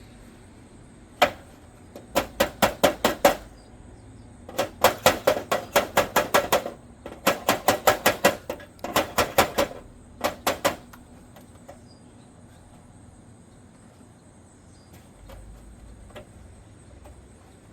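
Hammer tapping rapidly on a gutter spike, about six sharp blows a second in several bursts, to work a stuck spike loose.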